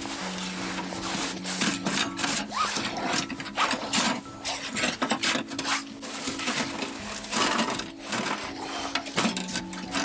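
Wooden sticks and a small metal tent wood stove and its stand knocking and clattering as they are handled and set down, a string of sharp irregular knocks.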